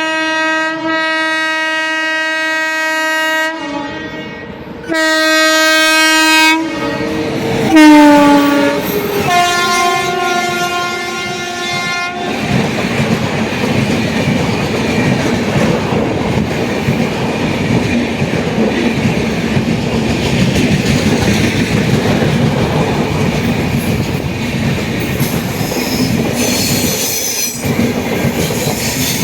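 An Indian express train's locomotive horn sounds four long blasts; the pitch falls during the third as the locomotive passes, and the last is lower. The coaches then rumble and clatter past over the rail joints, with wheels squealing near the end.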